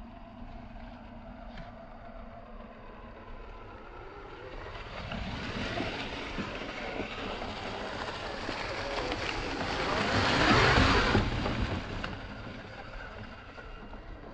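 Traxxas TRX-4 Defender RC crawler driving, its electric motor and drivetrain whining. The sound grows louder from about a third of the way in, peaks near ten seconds, then fades as it moves away.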